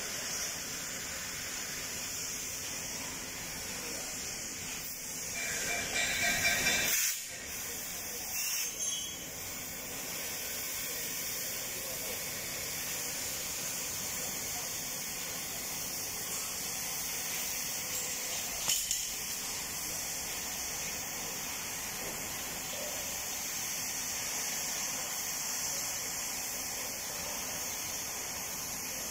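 Oxy-acetylene torch flame hissing steadily as it plays on a steel pipe, with a brief louder, partly pitched sound about six seconds in.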